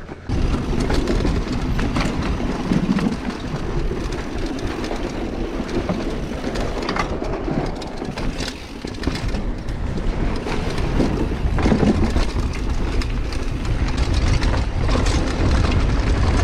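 Mountain bike riding down a rough trail: a continuous rumble of tyres over the ground, with many sharp rattles and clicks from the bike.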